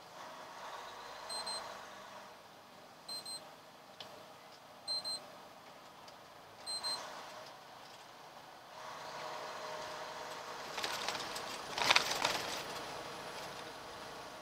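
Truck cab electronic alert sounding four double beeps about every two seconds over road noise inside the cab. The road noise then grows louder, and a loud thump comes about twelve seconds in.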